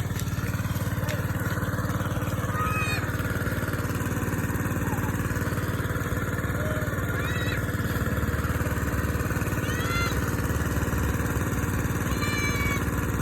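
A small engine running steadily at an even speed, with a few short high chirps over it.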